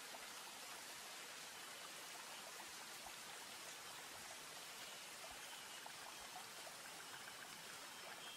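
Faint steady hiss with many scattered, faint ticks.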